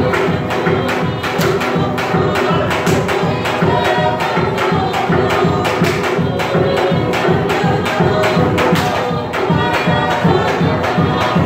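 Live Polynesian dance music: fast, even drumming at about four or five beats a second, with group singing over it.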